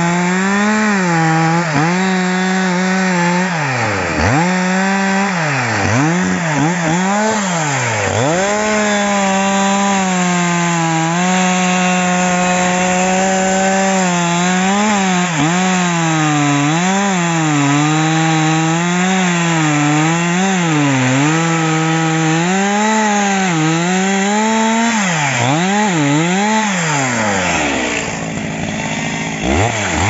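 Petrol chainsaw at full throttle cutting into a standing tree trunk to fell it, the engine note sagging and wavering as the chain bites into the wood. The throttle is briefly let off and opened again several times, near the start, a few seconds in, and repeatedly in the last few seconds, the pitch dropping sharply and climbing back each time.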